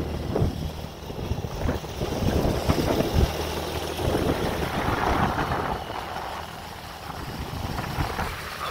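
Wind buffeting and handling noise on a phone microphone: an uneven low rumble with irregular thumps.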